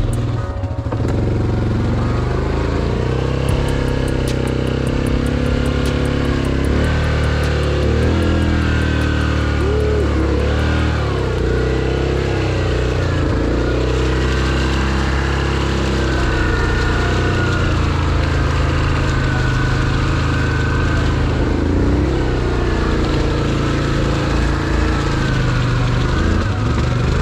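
ATV engine running under load while the quad is bogged in deep mud, its revs rising and falling unsteadily throughout.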